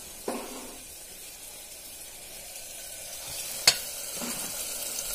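Onions, tomatoes and green chillies sizzling steadily in mustard oil in an aluminium pressure cooker as a flat metal spatula stirs and scrapes them. About three and a half seconds in, the spatula gives one sharp clink against the pot.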